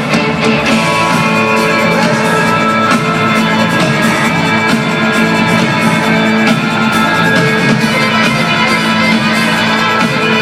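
Live rock band playing a song: electric guitars over a steady drum-kit beat.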